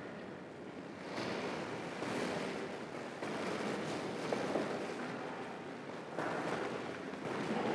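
Steady rushing hiss of church room noise, swelling and dipping, with soft rustling and shuffling as people move about.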